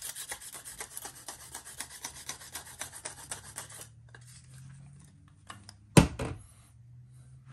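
Salt grinder being twisted over the meat, a fast, even rasping of about seven strokes a second that stops about four seconds in. About six seconds in there is a single sharp knock, and a faint low hum follows.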